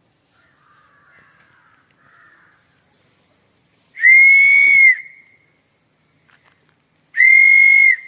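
Handmade wooden train whistle blown by mouth: two blasts, each about a second long, on a steady high note with higher tones sounding above it.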